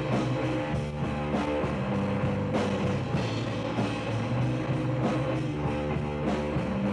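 Rock backing music with electric guitar and a steady drum-kit beat.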